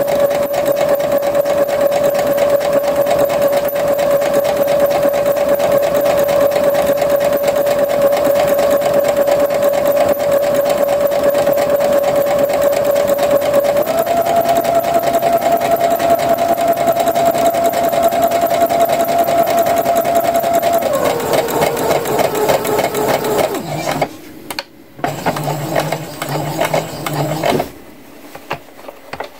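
Electric domestic sewing machine running steadily while stitching a seam, speeding up about halfway through, slowing down later, then stopping and giving a few short stop-start runs before going quiet near the end.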